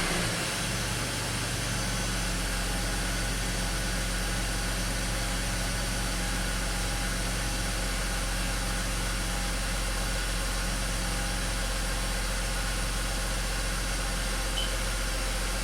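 BMW X5's six-cylinder engine idling steadily, warmed up and running in closed loop, its engine speed holding even throughout.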